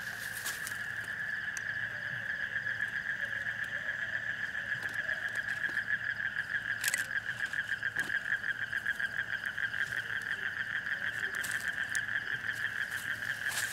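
Night chorus of calling animals: a steady, high-pitched call pulsing rapidly and evenly throughout, with a couple of sharp clicks about halfway through.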